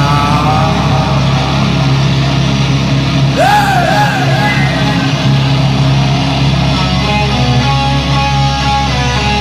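Two-piece rock band playing loud live: electric guitar and a drum kit. About three and a half seconds in, a short wavering high note rises above the band.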